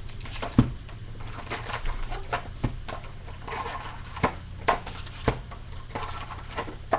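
Foil trading-card packs being pulled out of a cardboard hobby box and set down: the wrappers crinkle and the packs knock against the box and table in a string of sharp taps, the loudest about half a second in.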